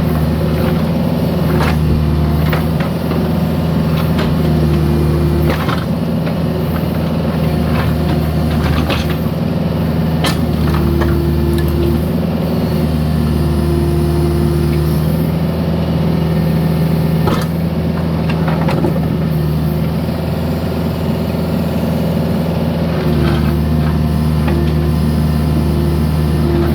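Mini excavator engine running steadily under load, with the hydraulics whining on and off and scattered knocks and scrapes as the bucket works broken concrete.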